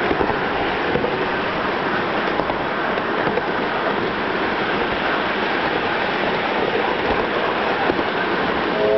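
Miniature live-steam locomotive, a 1961 English-built Britannia, running with its train on the track, a steady rushing noise of the engine and wheels on the rails. Just before the end its chime whistle starts to sound, a held chord of three tones.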